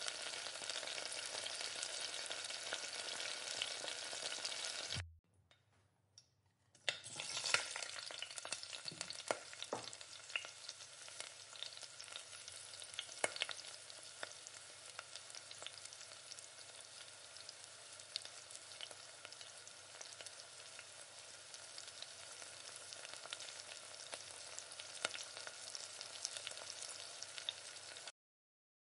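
Chilli sauce with onions and peppers sizzling and bubbling in a nonstick pan while a wooden spatula stirs it, with scattered light clicks. The sound breaks off for about two seconds around five seconds in, then picks up again somewhat quieter, and cuts off suddenly just before the end.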